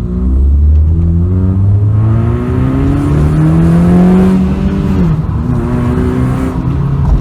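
Honda Civic 1.8 engine accelerating, heard from inside the cabin with the window open. The revs climb for about four seconds, drop at about five seconds in as at a gear change, then hold before falling off near the end.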